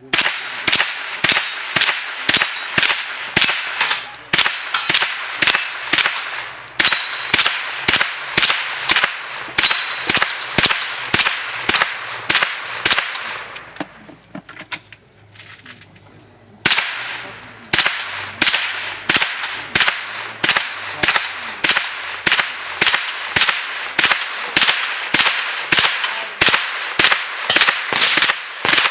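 Sig Sauer 522 .22 LR semi-automatic rifle firing steady shots at about two a second at steel plate targets, with plates ringing on hits. The firing stops for about two and a half seconds past the middle, then resumes at the same pace.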